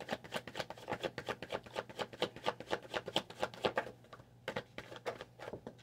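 A deck of tarot cards being shuffled by hand: a quick run of soft card snaps and flicks that thins out about four seconds in.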